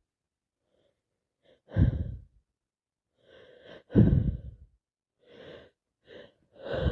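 A woman with a head cold gasping and sighing during a sneezing fit. Two sharp, loud bursts come about two and four seconds in, with shorter catching breaths between them, the build-up breaths of her sneezes.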